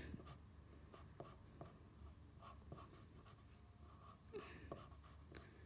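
Faint scratching of a pencil on paper in short, irregular strokes while shading, with a slightly louder stroke about four seconds in.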